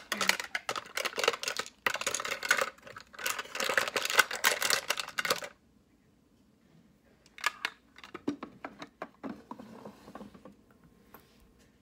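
Small plastic makeup items clicking and rattling as they are handled and rummaged through close to the microphone while one eyeliner is swapped for another. A dense run of rapid clicks for about five seconds, then a pause, then a few scattered clicks.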